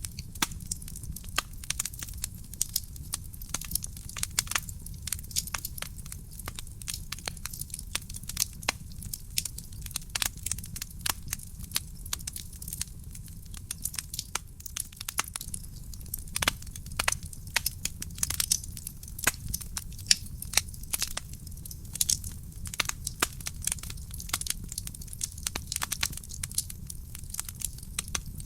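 Wood fire burning in a fireplace: a steady stream of irregular crackles and sharp pops over a low steady rumble of the flames.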